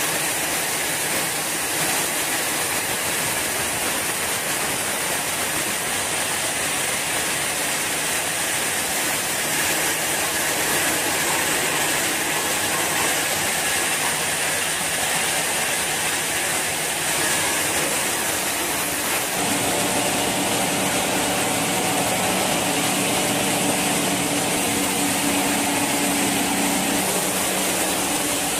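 TLP1083 crushing machine running steadily as it crushes washing machine shells, a dense mechanical grinding noise. A steady hum of several tones joins in about two-thirds of the way through.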